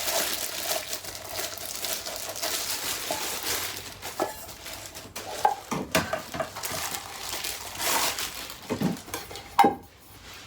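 A bag rustling as it is opened, then several clinks and knocks of the metal pots of a camping cooker set being handled and fitted together.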